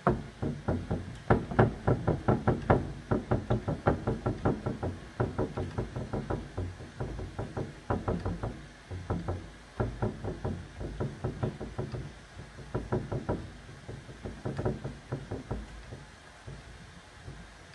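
Rag dabbed again and again against the wooden cupboard's wet painted surface: a fast run of soft knocks, several a second, that thins out near the end. The dabbing lifts off the wet top layer of chalk paint to give an aged, distressed look.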